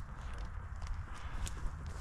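Footsteps through dry, snow-dusted weeds and brush, with a few scattered crackles of stems.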